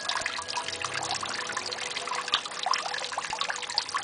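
Koi gulping at the surface of a pond while being fed: a dense, irregular patter of small water slurps, pops and splashes.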